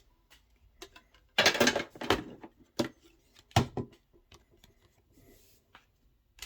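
Knocks and light clatter of booster packs and a metal collector's tin being handled and set down on a table, in a few short clusters with small ticks between.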